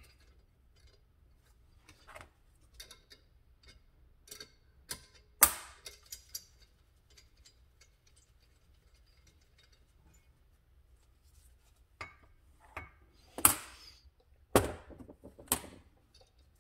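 Scattered metallic clicks and ticks from hand tools on a turbocharger's wastegate actuator: a small ratcheting wrench loosening a bolt and metal tools clinking against the metal bench. There is one sharp knock about five and a half seconds in, and three more near the end.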